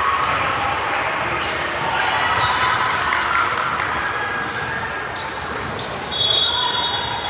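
Basketball game in a gym: the ball bouncing on the hardwood court amid voices of players and spectators, with a louder moment about six seconds in.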